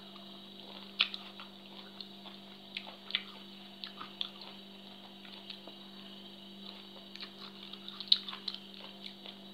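Someone chewing a mouthful of papaya salad, with scattered small clicks and smacks from the mouth and fingers, loudest about a second in and again near the end. A steady low electrical hum runs underneath.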